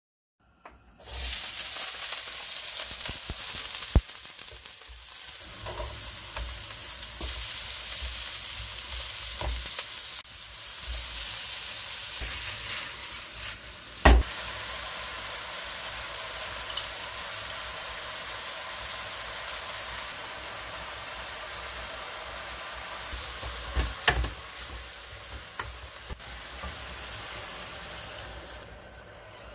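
Ground pork and onion sizzling in a frying pan while being stirred with a wooden spatula, starting about a second in. The sizzle is louder over the first half and quieter from about halfway on, with a few sharp knocks of the spatula against the pan.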